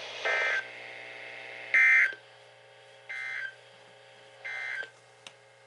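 Four short electronic alert beeps, about 1.4 s apart, the second loudest, over a faint steady hum: a broadcast severe-weather alert tone.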